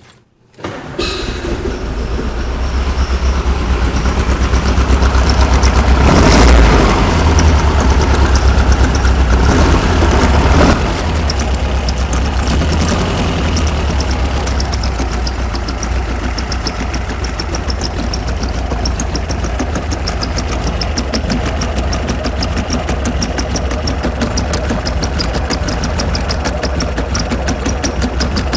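VW Super Beetle's 1900 cc air-cooled flat-four, on dual EMPI 40 IDF carburettors, starting about a second in. It runs louder for several seconds, drops suddenly just before the halfway point, and then settles into a steady idle.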